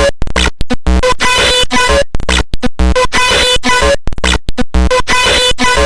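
Mock emergency alert alarm, harshly distorted: a steady high electronic tone buried in noise, chopped into rapid stuttering bursts with sudden short silences.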